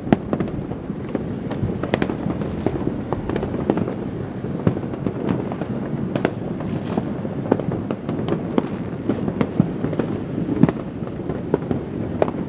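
Dense citywide New Year fireworks: a continuous rumble of distant bursts with many sharp cracks and bangs going off irregularly throughout.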